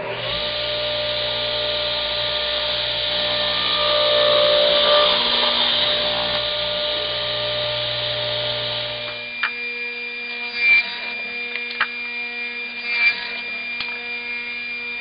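Radial arm saw running and cutting wood; about nine seconds in the loud motor noise drops sharply, leaving a quieter steady whine broken by a few sharp knocks as cut wooden pieces are handled.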